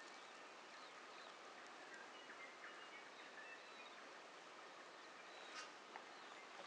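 Faint birdsong: scattered short chirps and whistles from several birds over a steady hiss of quiet bush, with two sharp ticks near the end.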